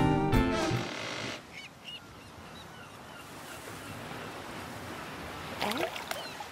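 Acoustic guitar title music fades out in the first second or so. Gentle sea-wave ambience follows, with faint bird calls. Near the end come a few louder, sweeping gull cries.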